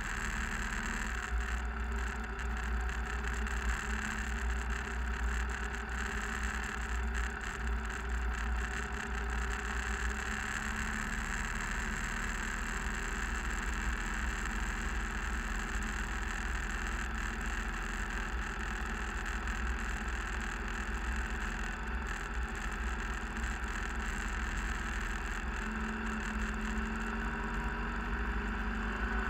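Steady engine and tyre noise inside a vehicle driving on a snow-covered road, with a constant low hum.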